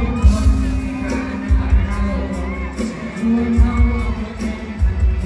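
Loud live band music with a heavy bass beat, and a crowd of fans screaming and cheering over it.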